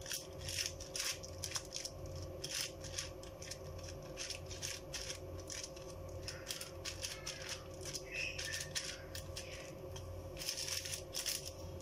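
Plastic bag sheet crinkling and rustling under an oiled palm pressing stuffed dough flat on it, in many short irregular crackles. A low steady hum runs underneath.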